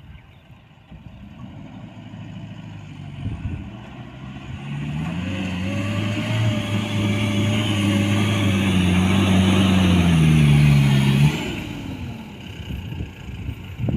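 Mahindra diesel pickup engine revving hard under load as it drives at a sand dune: it swells louder and higher in pitch over several seconds, holds at high revs, then drops off suddenly about eleven seconds in as the throttle is released.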